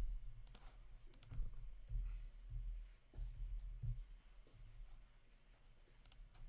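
Scattered light clicks over dull low thumps and rumbling. The thumps are loudest in the first four seconds.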